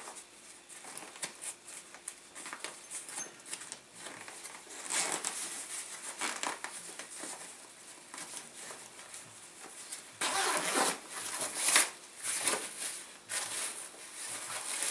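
Backpack zipper pulled open in several rasping strokes, with nylon fabric rustling as the compartment is handled; the strokes are loudest about ten to twelve seconds in.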